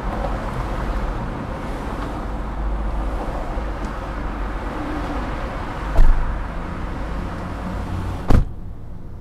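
Steady noise of freeway traffic passing close to a stopped car. A sharp knock comes about six seconds in, and a louder bang near the end, after which the traffic sound turns dull and quieter.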